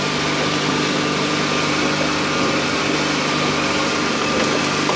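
An engine running steadily, a constant even drone with a low hum.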